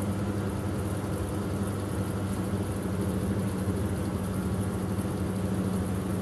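Schaublin toolmaker's lathe running with no cut, its four-jaw chuck spinning: a steady electric-motor and spindle hum.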